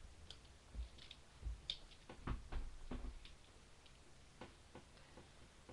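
Scattered small clicks and a few dull low knocks, loudest about two to three seconds in, from someone shifting about and handling things close to a webcam microphone.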